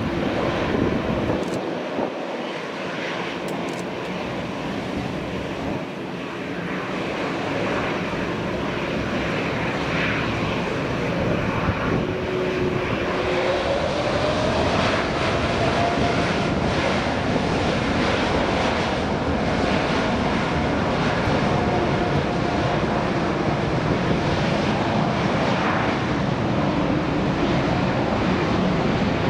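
Air Canada Boeing 787-9's GEnx turbofan jet engines spooling up for the takeoff roll. The roar grows over the first half, and a whining tone rises partway through, then holds at a steady full-thrust roar.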